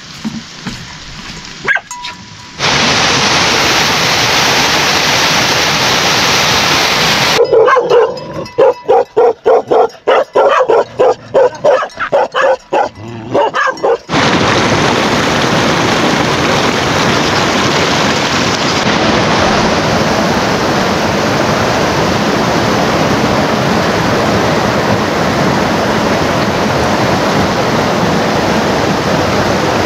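Steady heavy monsoon rain hissing, broken by a stretch of several seconds of a dog barking rapidly, about two to three barks a second, after which the rain hiss returns unchanged.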